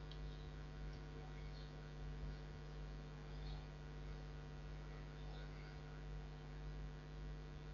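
Steady low electrical hum, mains hum in the recording's background, with faint scattered high-pitched chirps over it.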